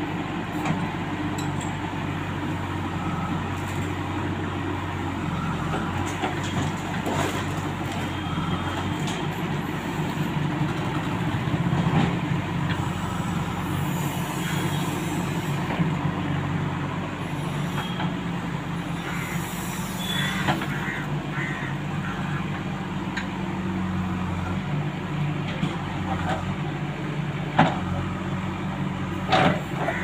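JCB 3DX backhoe loader's diesel engine running under load while the backhoe arm digs soil, its note stepping up about a third of the way in. A few short knocks from the bucket and stones cut through it.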